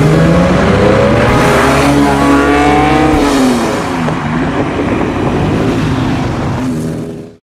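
Lamborghini Diablo VT's V12 engine accelerating past, its pitch climbing for about three seconds and then dropping as the car pulls away. The sound cuts off suddenly near the end.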